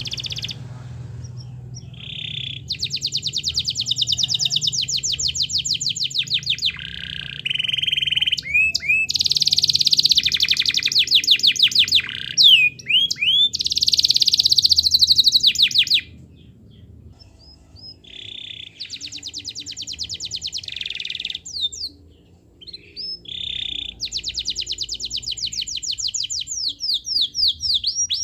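Yellow domestic canary singing in full song: long phrases of fast, rapidly repeated trills and rolls, mixed with swooping notes, broken by brief pauses.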